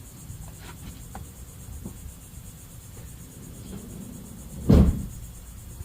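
Crickets chirping steadily over a low background rumble, with one loud thump a little under five seconds in.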